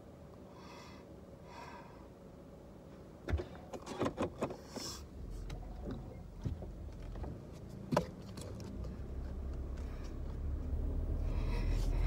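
Inside a car: a few sharp clicks and knocks about three to five seconds in and once more near eight seconds, then a low engine rumble that grows steadily louder as the car pulls away.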